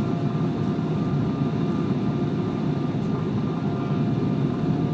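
Cabin noise of an Embraer 190 airliner on approach, heard from a window seat behind the wing: the steady, deep roar of its GE CF34-10E turbofans and the airflow, with faint steady engine tones above it.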